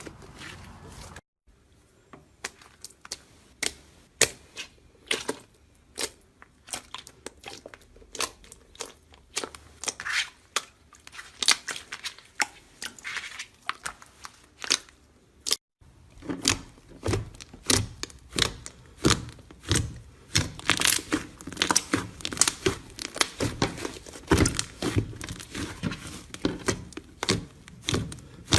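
Slime being squeezed and pressed by hand, making a rapid series of sharp crackling clicks and pops. The sound breaks off twice, about a second in and about halfway through, then comes back denser and louder.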